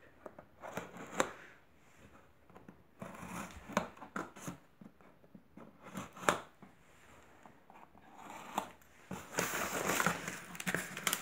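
Scissors snipping and slicing through packing tape on a cardboard box in short, scattered cuts, then cardboard and plastic wrap rustling as the box is opened near the end.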